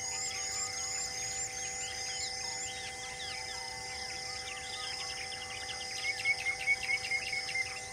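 Birdsong and insect chorus: a high chirp that rises and repeats about three times a second over steady droning tones, with a quick run of louder chirps near the end.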